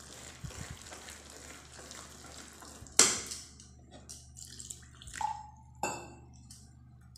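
Wire whisk stirring a dry flour-and-semolina mix in an enamel pot, then water poured in from a steel tumbler. A sharp metal clank about three seconds in is the loudest sound, and two ringing steel clinks follow a couple of seconds later.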